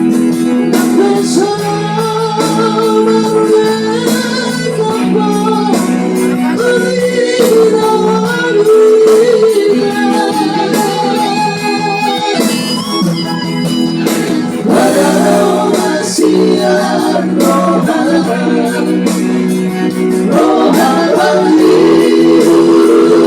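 Music: a song with a wavering, vibrato melody line over steady held chords.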